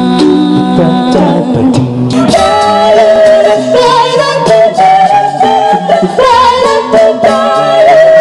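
A cappella vocal group singing in harmony without instruments, women's and men's voices together, several held notes sounding at once with a female lead voice over them.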